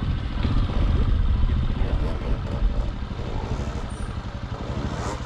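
Honda trials motorcycle's single-cylinder four-stroke engine running at low revs, a steady low pulsing as the rider balances the bike on a rock ledge.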